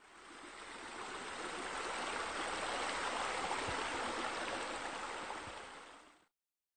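Running, splashing water of a pool's rock waterfall, a steady rush that fades in over the first second or two and fades out about six seconds in.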